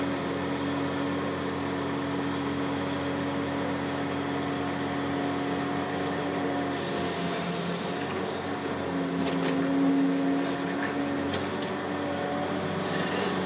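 John Deere 800C LC excavator's diesel engine running steadily under load, heard from inside the operator's cab while it digs, swings and dumps into a rock truck. The engine note sags and fades about halfway through, then comes back louder a couple of seconds later.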